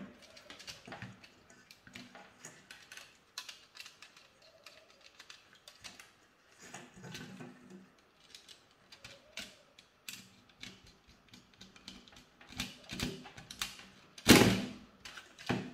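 Handling noise as a wire is fastened into a plastic 4-gang light switch's terminal with a screwdriver: irregular small clicks, scrapes and rattles of plastic and wire, with one sharper knock about 14 seconds in.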